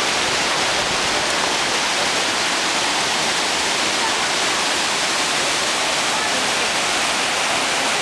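Fast mountain stream rushing over boulders, fed by small waterfall cascades. It makes a loud, steady rush of white water that does not change.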